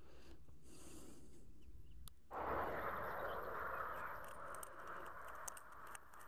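Mesh keepnet hauled out with the catch. About two seconds in, water starts to rush out of it suddenly and slowly dies away, with small clicks and rustles of the net.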